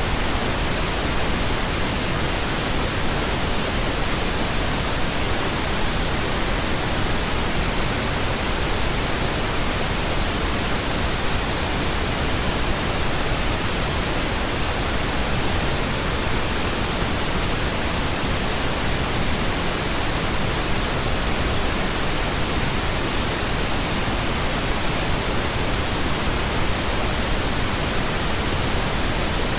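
Steady pink noise: an even, unchanging hiss spread across all pitches, with no events or changes.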